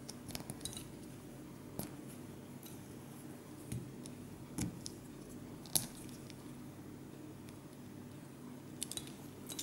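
Plastic LEGO Technic parts clicking and rattling as pins are pressed into a wheel rim while building a wheel hub: scattered small clicks, the sharpest about six seconds in and a quick run of them near the end, over a steady low hum.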